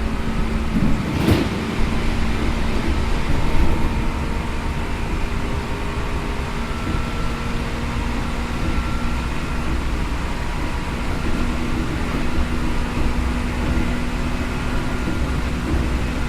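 Seibu N2000 series electric train running, heard inside the passenger car: steady rumble of wheels on the rails with a low steady hum from the field-chopper-controlled traction motors and gearing. A single sharp knock sounds about a second in.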